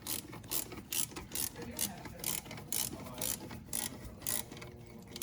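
Hand ratchet wrench worked back and forth on a bolt, giving a short burst of pawl clicks on each return stroke, about two strokes a second, evenly.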